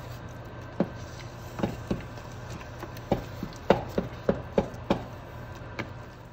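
Wooden spatula stirring and mashing cooked chicken and chana dal in an aluminium pressure cooker, giving about a dozen irregular knocks against the pot with soft scraping between them. A steady low hum runs underneath.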